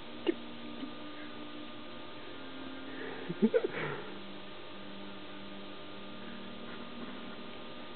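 Steady electrical hum, broken by a sharp click near the start and a short flurry of clicks and brief pitched sounds about three and a half seconds in.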